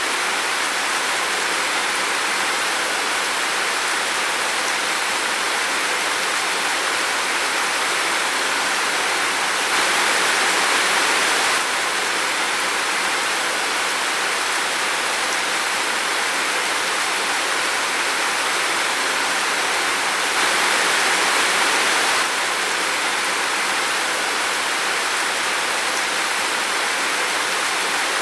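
Steady rain falling in a forest: an even, dense hiss of drops with no separate patters. It grows slightly louder twice, for about two seconds each time.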